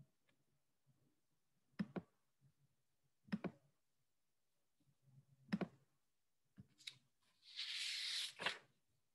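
Scattered sharp clicks and knocks, some in quick pairs, in a quiet small room, then a short hissing rustle near the end followed by one more click.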